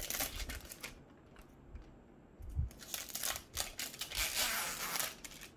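Plastic and foil toy packaging crinkling and tearing as it is handled and pulled open, in bouts: one at the start and a longer one from about two and a half seconds in.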